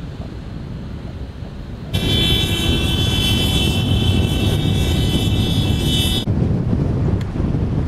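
Wind and road rumble from a moving car. About two seconds in, a car horn starts suddenly, is held steady for about four seconds, then cuts off abruptly while the rumble goes on.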